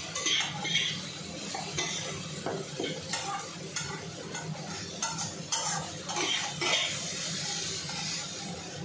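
Metal spatula stirring and scraping mutton pieces frying in masala in a steel kadai, with irregular clinks and scrapes against the pan over a light sizzle.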